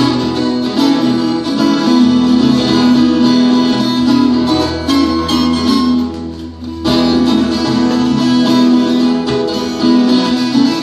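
Live band playing a song, with guitar to the fore over keyboard and drums. The sound thins briefly about six seconds in, then picks up again.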